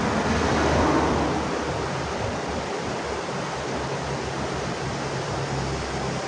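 Steady rushing background noise that swells slightly about a second in, with a low, engine-like hum coming in about halfway.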